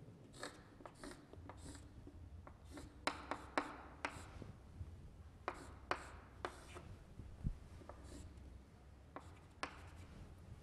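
Chalk drawing on a blackboard: faint, short scratching strokes and taps at irregular intervals.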